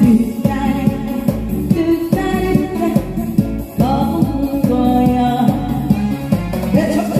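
A singer's voice over musical accompaniment with a steady beat.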